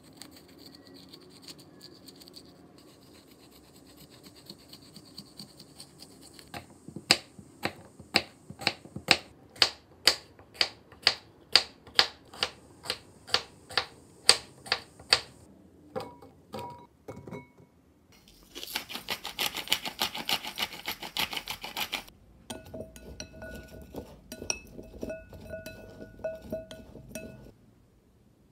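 A spoon scraping the seeds out of a halved cucumber, then a santoku-style kitchen knife chopping cucumber on a bamboo cutting board, about two sharp strokes a second. A few seconds of dense hiss follow, then quick light clinks with a ringing tone from a glass bowl, and a thump at the end.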